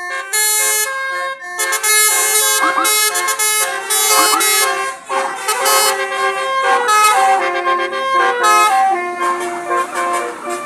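Bus 'telolet' multi-trumpet musical horn, Basuri type, playing a tune: loud chords of several horn notes that change in steps, with short breaks between phrases.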